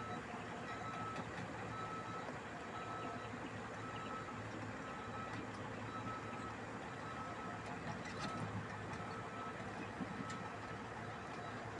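Reversing alarm of heavy construction machinery beeping steadily about once a second over the low, steady running of diesel engines.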